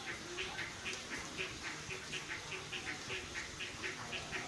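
Short animal calls repeating in a steady rhythm, about four a second.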